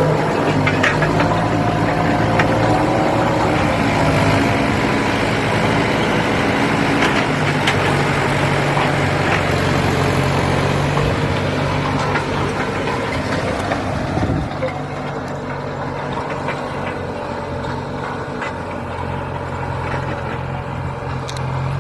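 95-horsepower farm tractor's diesel engine running steadily while tilling soil. About two-thirds of the way through it gets a little quieter and loses some of its higher hiss.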